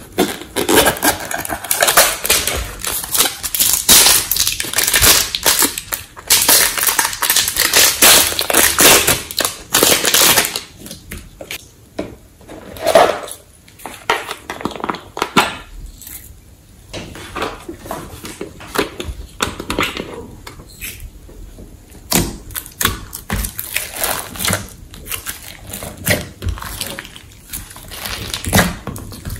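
Close-up handling of toys and slime: dense crackling and clicking for about the first ten seconds, then sparser clicks and taps as the buttons of a plastic whack-a-mole toy are pressed. Near the end comes soft squishing as glossy slime is pressed by hand.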